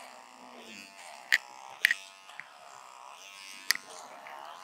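Personal electric hair trimmer buzzing as it clips a Labrador's coat, its pitch wavering up and down with the load. Three sharp clicks cut through the buzzing.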